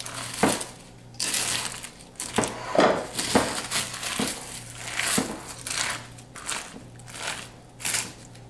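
Wooden spoon stirring corn flakes coated in hot peanut butter and sugar syrup in a glass mixing bowl. The flakes crunch and crinkle in repeated, uneven strokes, one or two a second.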